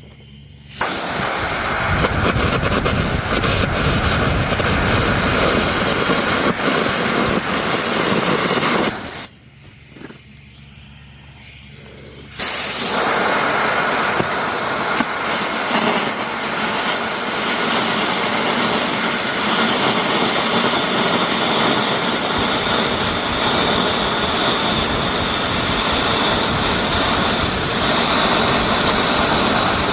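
Air carbon arc gouging: the carbon arc and its compressed-air jet make a loud, crackling hiss as teeth are blown off a steel drum. It cuts off about nine seconds in and starts again about three seconds later.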